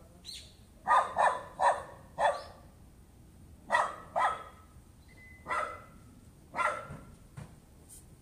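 A dog barking repeatedly: about nine short, sharp barks in loose groups of one to three, spaced irregularly. This is the persistent nuisance barking of a household dog.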